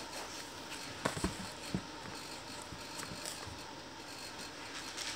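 A few light knocks and thumps from someone moving about a small bedroom, two close together about a second in and one more shortly after, over quiet room tone.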